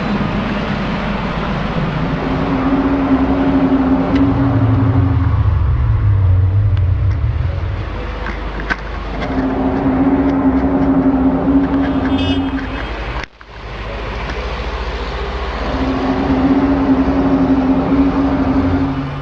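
Loud, unexplained low droning hum that comes in three long blasts of several seconds each. Each blast holds one steady pitch, over a constant deeper rumble that swells between the first two blasts.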